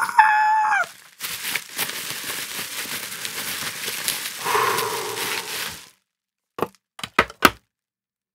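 Packaging being handled and unwrapped: a short high whine that drops in pitch at the very start, then several seconds of rustling and crinkling, and a few sharp clicks near the end.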